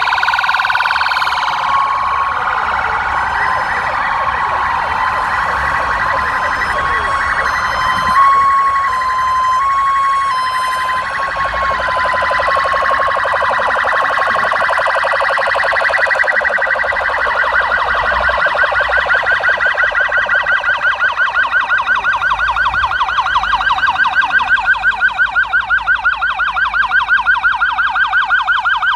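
Several police vehicle sirens sounding at once, their wails overlapping. From about twenty seconds in, a fast yelp dominates.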